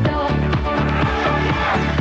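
Electronic dance music with a steady beat and sustained bass line.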